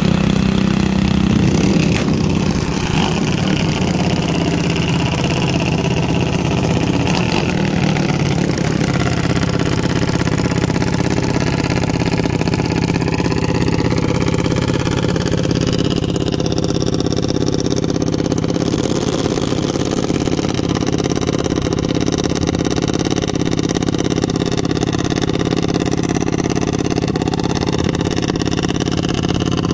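Junior dragster single-cylinder engines idling steadily. The pitch wavers a little in the first several seconds, then holds even.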